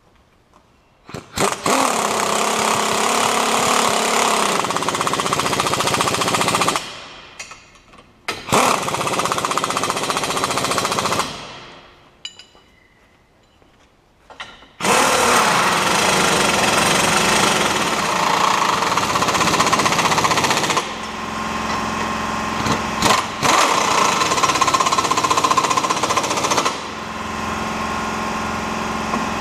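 Pneumatic impact wrench hammering the tow bar's mounting bolts into the van's chassis, in three long bursts; the first two wind down as the trigger is let go, and the third runs on steadily.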